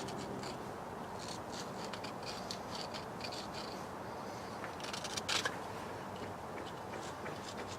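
Repeated short scraping strokes on metal, a few per second, with a couple of sharper ones about five seconds in: crud and corrosion being scraped off the thermostat housing's mounting surface.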